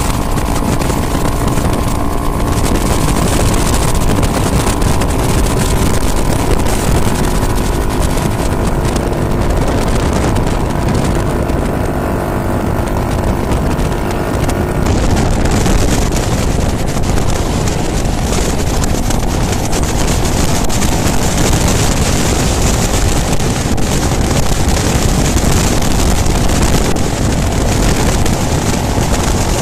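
Cruiser motorcycle engine running steadily at cruising speed, heard under heavy wind buffeting on the microphone. The wind grows stronger and covers the engine note about halfway through.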